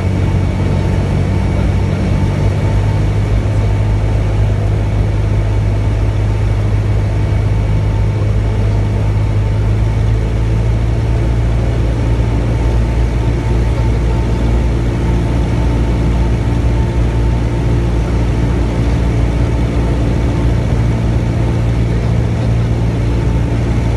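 Cessna 172's piston engine and propeller droning steadily inside the cabin, during the descent on final approach to landing. Its tone changes slightly about halfway through.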